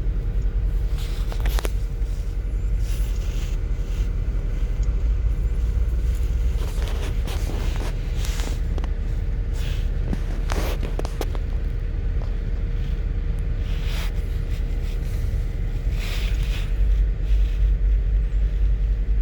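2008 GMC Acadia's 3.6-litre V6 running at idle, a steady low rumble with scattered light clicks and knocks. The engine has a multiple-cylinder misfire (code P0300), centred on cylinder 5's coil and spark plug, which makes it shake.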